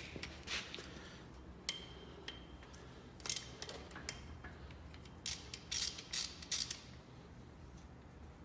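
Socket ratchet clicking in short bursts as a bolt on a car engine is turned, with a faster run of clicks in the second half before it goes quiet.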